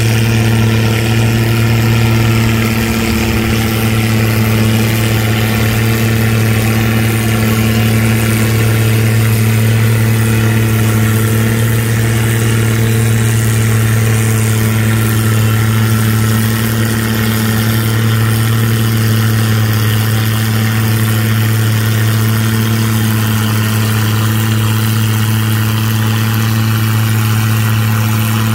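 Antique tractor engine running steadily at one unchanging pitch, a loud, even hum with no revving up or down.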